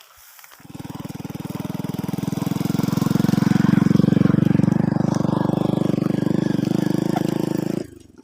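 A small engine running steadily with a fast even pulse, growing louder over its first couple of seconds and cutting off abruptly near the end.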